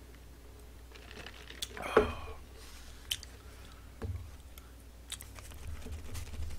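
Sounds of eating fast food at a table: a short vocal sound about two seconds in after a sip of cola through a straw, then light knocks as the paper cup and food are handled, and paper wrappers crinkling as fries are picked up near the end.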